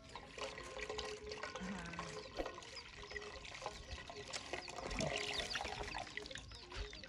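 Water poured from a plastic jug through a mesh strainer of passion fruit pulp and seeds, trickling and splashing into a metal saucepan of juice.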